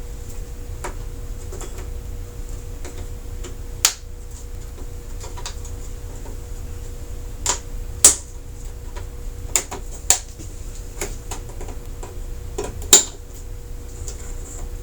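Retaining clips inside an LG TV being pried out one after another: a string of sharp, irregular clicks and snaps, with a faint steady hum underneath.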